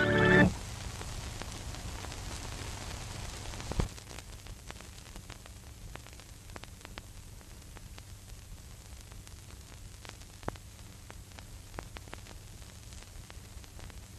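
Hiss and crackle of an old film soundtrack with a faint hum and scattered clicks and pops, after the music cuts off about half a second in; a louder pop comes near four seconds.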